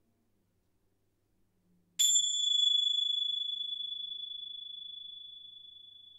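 A small metal chime struck once about two seconds in, ringing a single clear high tone that slowly fades.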